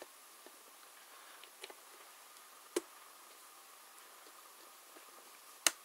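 A few short plastic clicks, sparse against a quiet background, with the loudest near the end: a thin tool prying at the latches along the top edge of a Lenovo G500 laptop keyboard to release it.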